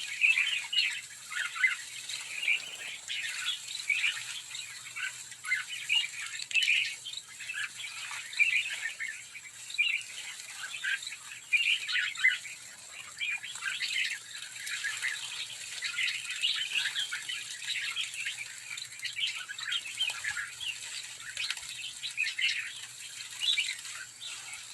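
A large flock of sooty-headed bulbuls chirping and calling over one another without pause, with wingbeats fluttering as the birds bathe.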